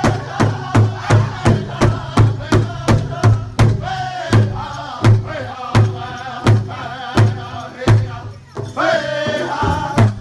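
Powwow drum group singing in high, strained voices over a large hide drum that several singers strike in unison with beaters. The beat runs at about three strokes a second, then slows to about half that speed around four seconds in.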